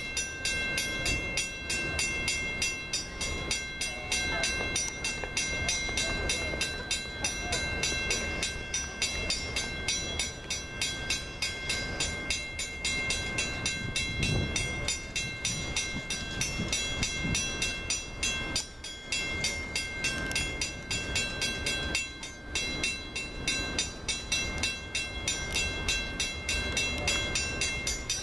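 Electronic grade-crossing bell ringing in a steady, rapid rhythm of even strokes, over the low sound of a train approaching on the track.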